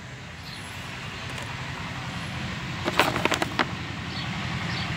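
Low, steady engine hum of a motor vehicle running, growing slowly louder, with a quick run of sharp clicks about three seconds in.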